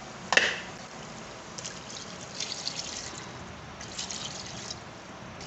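A short knock about a third of a second in, then water poured into an aluminium pot of fried chicken and masala, splashing in two spells.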